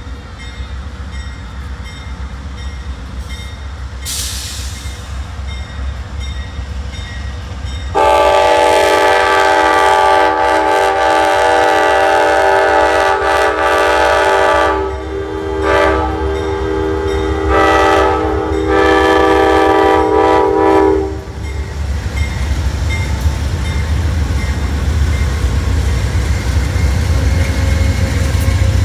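Amtrak passenger train approaching and passing, its locomotive's multi-chime air horn sounding a long blast followed by three shorter ones, the last of them longer. Under it, the rumble of the train builds and carries on as the bi-level cars roll past.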